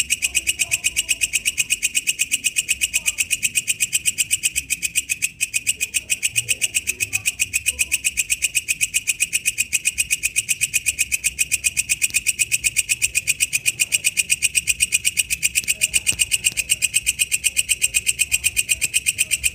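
Walang kecek katydid singing in the wild: a fast, even train of sharp, high-pitched clicking chirps, about seven a second, kept up without a break.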